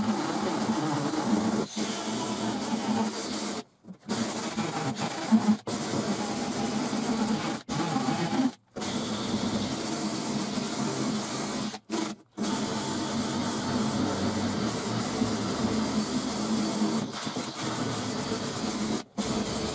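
Cordless drill spinning a wire cup brush against a rusty steel bonnet, scrubbing off loose rust and flaking paint. It is a steady whirring grind that cuts out for a moment several times as the trigger is let go and squeezed again.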